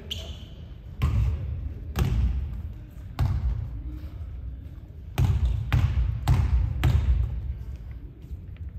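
A basketball dribbled on a sports-hall court floor, seven echoing bounces: about a second apart at first, then quicker, roughly two a second, from about five seconds in.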